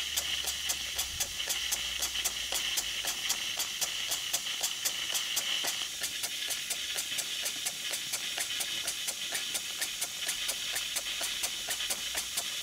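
Stuart Models Victoria horizontal mill engine running fast, its exhaust giving a rapid, even beat over a steady hiss.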